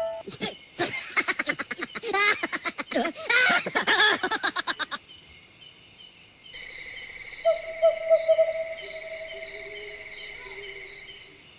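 A woman's high-pitched, cackling laugh, the signature laugh of the kuntilanak ghost, lasting about five seconds. After it, night insects chirring: a steady high drone with regular chirps about twice a second, and a held lower tone under it.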